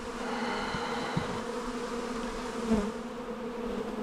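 Buzzing of many honeybees flying around open hives, a steady hum, with a light knock about a second in and one bee swelling louder near the end as it passes close.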